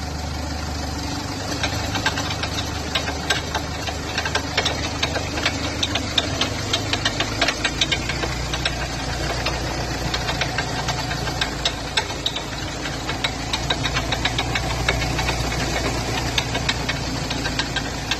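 Ford Figo running, with rapid irregular clicking over the engine sound: the abnormal noise the car makes when turning, put down to a worn drive shaft bearing. The engine's low hum changes pitch about halfway through.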